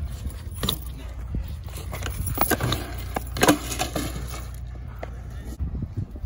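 BMX bike bail on a concrete skatepark: a series of knocks and clatters, the loudest about three and a half seconds in, as the bike hits the concrete. A low steady rumble underneath stops about four and a half seconds in.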